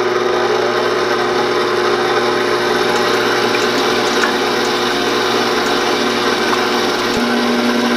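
Stand mixer running steadily, its wire whisk beating egg whites in a stainless steel bowl to make meringue: a steady motor hum, with a second, lower tone joining about seven seconds in.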